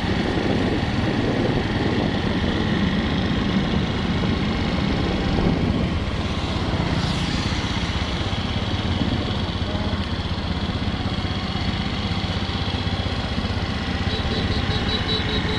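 Motor scooters riding along a road: steady engine and road noise. Near the end, a quick, even run of short high beeps.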